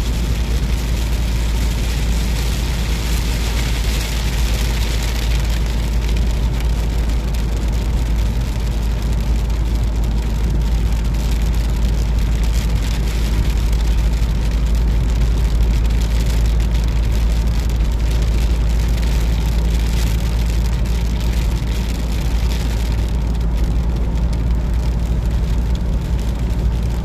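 Car interior noise at highway speed: a steady low engine and road rumble, with rain hitting the windshield.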